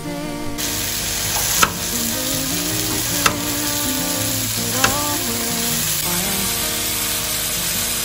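Burger patties sizzling on a stainless-steel Le Griddle flat-top, the sizzle growing louder about half a second in, with three sharp clicks about a second and a half apart as a metal spatula works the patties. Background music with a melody plays underneath.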